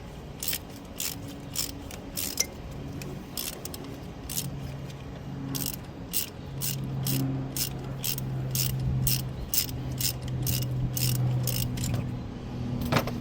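Hand ratchet wrench clicking as a fastener is backed out by hand, about two clicks a second, stopping near the end. A steady low hum runs underneath.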